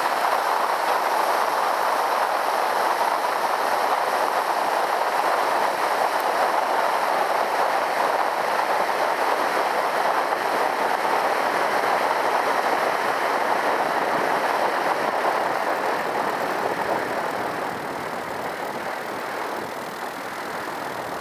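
Steady rush of wind and rolling rumble from a Zenith CH 650 light aircraft moving along the runway after landing, picked up at its wingtip. The noise eases over the last few seconds as the plane slows and turns off the runway.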